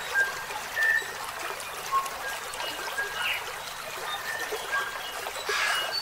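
Water trickling steadily, with scattered short bird chirps at several pitches over it.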